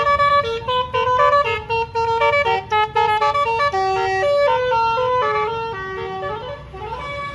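Bus basuri telolet musical horn playing a quick melody of stepped notes, with a low rumble underneath.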